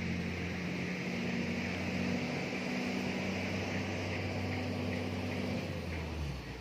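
Boat engine running steadily over a light hiss of water and wind; about six seconds in its note drops lower.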